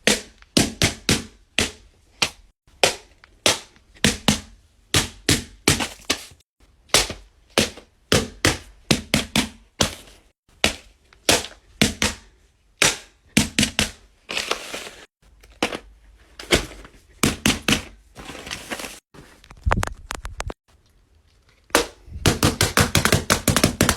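Sharp clicks and taps from small handmade fidget toys being handled, often several a second, with a couple of brief hissy rustling stretches and a faster run of clicks near the end.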